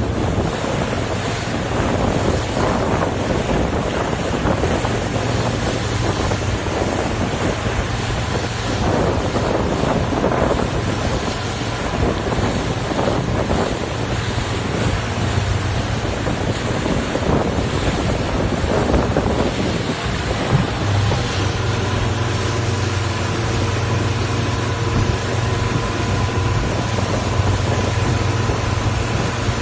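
Strong wind buffeting the microphone and choppy water rushing past a moving boat. A steady low hum runs underneath and grows stronger about two-thirds of the way through.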